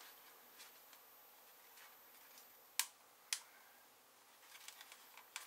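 Two sharp plastic clicks about half a second apart as a cut acrylic mirror glass is pressed against a motorcycle wing-mirror housing while it is test-fitted, with faint handling ticks near the end.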